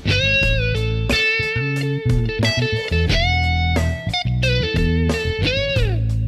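Background music led by electric guitar, with bent, sustained notes over a bass line.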